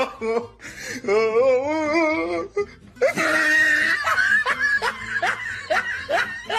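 Spotted Bengal cat vocalising with its mouth open: a long wavering cry, then a run of short rising cries, about three a second, mixed with laughter.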